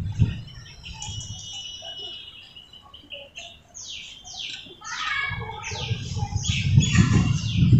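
Birds chirping in the background: high twittering notes, then a run of quick falling chirps, about two a second, from about four seconds in. A low rumbling noise builds beneath them from about five seconds in and is the loudest part.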